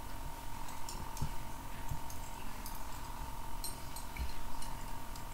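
Faint, scattered clinks and light taps of small steel orthopedic bone screws being handled in a hand, over a thin steady whine.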